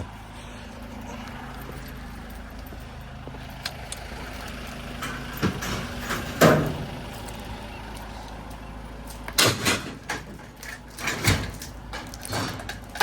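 A vehicle engine idling steadily, with scattered knocks and clatter of scrap being handled and loaded. The loudest knock comes about six and a half seconds in, and a run of knocks and bangs falls in the last few seconds.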